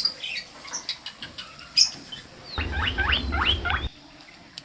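Guinea pig eating mango: scattered sharp chewing clicks, then about two and a half seconds in a quick run of six or seven short rising squeaks with a low rumble beneath them.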